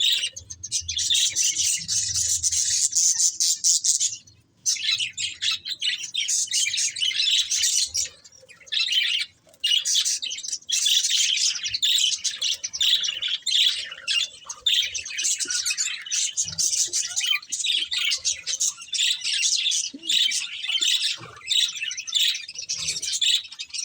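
Budgerigars chattering and chirping in long, rapid high-pitched bouts, with brief pauses about four seconds in and again around eight seconds in.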